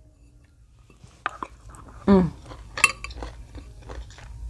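Spoon clicking against a bowl of rice, with a brighter clink near the middle, then soft wet chewing of a mouthful of rice.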